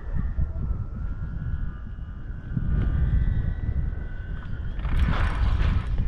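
Wind buffeting the microphone as a steady low rumble, with a faint high whine running under it and a short hiss about five seconds in.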